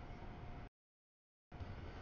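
CSX double-stack container train's cars rolling past on the rails, a steady low rumble, heard in choppy bits: the sound cuts out completely under a second in and comes back for the last half second.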